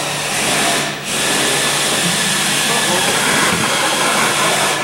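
A loud, steady hiss that breaks off briefly about a second in, then carries on and stops suddenly.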